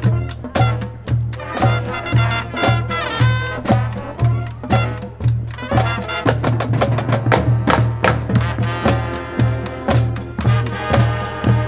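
Marching band music: brass and percussion playing over a steady low beat about twice a second.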